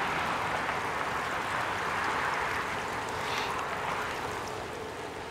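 A motor vehicle's running noise, fading steadily as it moves away.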